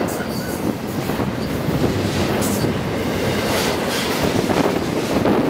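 Double-stack intermodal freight train rolling past at speed: a steady rumble of well-car wheels on the rails with a few scattered knocks.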